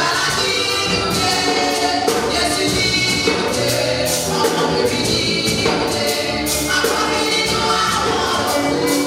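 Gospel music: a choir singing over instrumental accompaniment with a steady beat.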